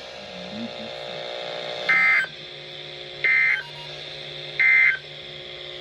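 Emergency Alert System end-of-message data bursts from a NOAA Weather Radio: three short, identical buzzy digital chirps about a second apart, marking the end of a severe thunderstorm warning, with steady radio hiss between them.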